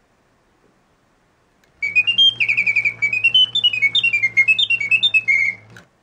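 Antique French singing-bird mechanism's bellows-blown whistle playing a birdsong for about four seconds, starting about two seconds in: quick chirps and trills sliding up and down in pitch, over a low steady hum, then cutting off suddenly.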